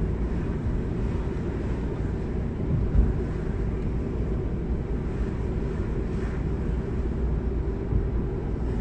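Car cabin noise while driving: a steady low rumble of engine and road, with a brief low bump about three seconds in.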